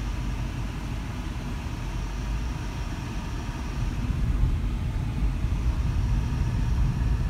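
Steady low rumble of engine and road noise heard inside a vehicle's cabin while it drives.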